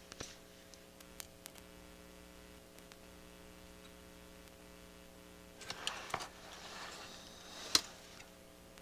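Small clicks and light rustling of tools and circuit-board parts being handled on a workbench, with a cluster of clicks about six seconds in and one sharp click near the end. A steady electrical hum runs underneath.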